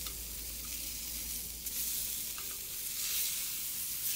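Burger patties sizzling steadily on a black griddle over a wood fire, with a few faint ticks.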